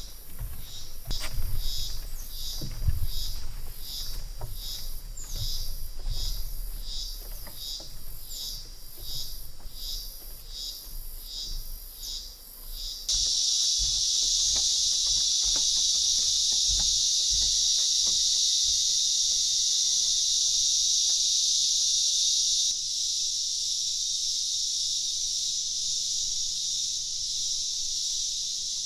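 Insects calling: first a high chirp repeated about one and a half times a second over low thuds, then, about halfway through, a steady unbroken high insect drone.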